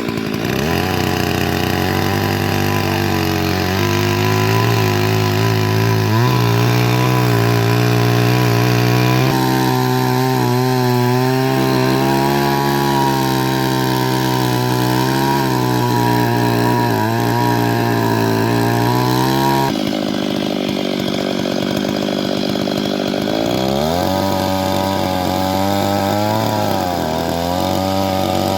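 Two-stroke chainsaw running at high revs while cutting through wood, its pitch wavering under the load. About two-thirds of the way through it drops back, then revs up again a few seconds later.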